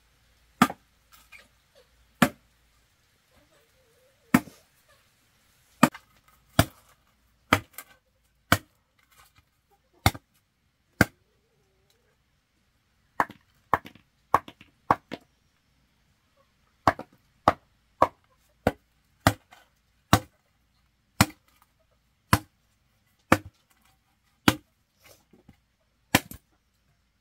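A blade chopping on wood in sharp single strokes, unevenly spaced: some a second or two apart with short pauses, others in quick runs of three to five.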